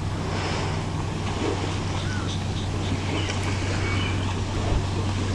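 Steady low hum with a constant hiss over it: the recording's background noise.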